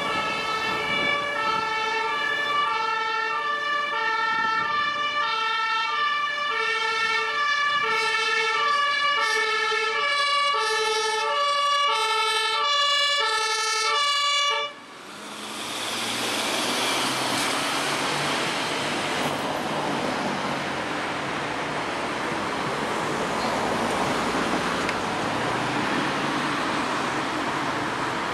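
Ambulance two-tone siren (German Martinshorn), alternating steadily between two pitches and growing louder as it approaches. About halfway through it cuts off suddenly and gives way to the steady rush of road traffic passing close by.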